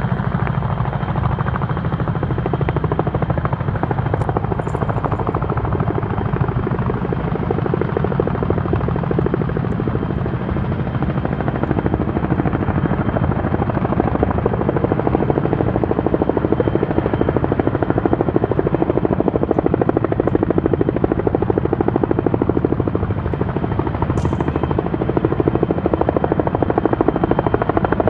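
CH-46 Sea Knight tandem-rotor helicopter, its rotors beating rapidly over the steady run of its turbine engines, growing somewhat louder about halfway through as it comes in low with its water bucket.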